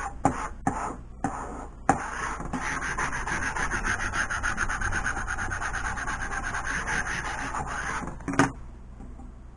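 Vinyl decal being rubbed down hard on a sign to work out the excess application liquid from underneath. A few separate strokes come first, then fast, even back-and-forth rubbing for about six seconds, ending with a knock near the end.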